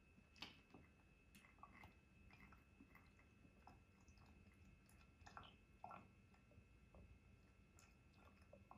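Near silence: faint room tone with a few soft, scattered clicks and ticks.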